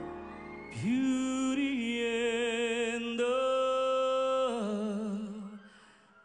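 A male singer sustains long notes of a slow ballad: he scoops up into a held note about a second in, steps up to a higher held note around three seconds with light vibrato, then slides down and fades away near the end.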